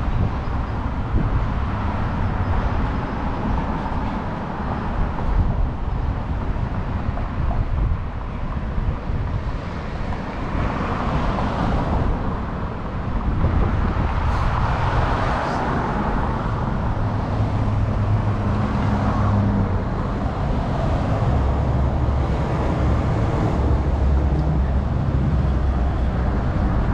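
Street traffic: cars passing, their tyre and engine noise swelling and fading twice around the middle, over a steady low rumble of wind on the microphone.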